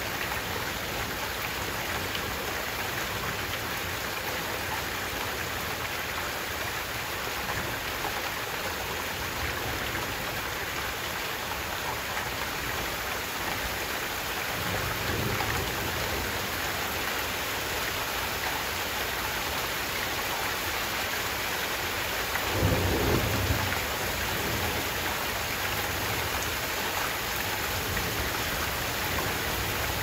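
Heavy rain falling steadily, with water gushing from a house gutter downspout onto flooded ground. Low thunder rumbles twice, the louder one about three quarters of the way through.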